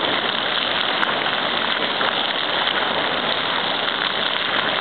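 Floor-fountain water jets falling back onto wet paving stones and into a fountain basin, a steady, even rush of splashing water.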